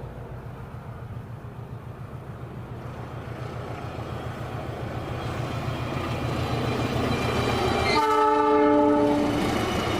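Diesel locomotive-hauled train approaching, its engine growing steadily louder, then sounding its horn once for about a second and a half near the end.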